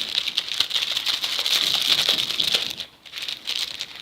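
A spoon clicking and scraping rapidly against a plastic container while stirring glue for slime. The clatter eases off and turns into a few scattered clicks near the end.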